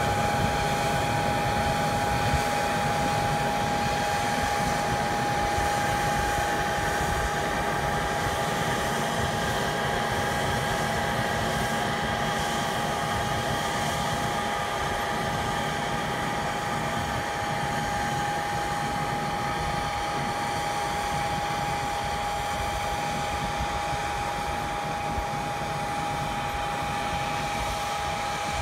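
Robotti robotic implement carrier with a Monosem NC planter running as it plants, a steady high whine over a low engine rumble, slowly fading as it moves away.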